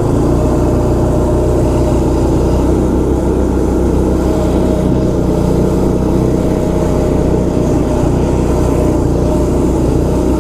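Small kids' snowmobile engine (Arctic Cat ZR 120) running at a steady speed.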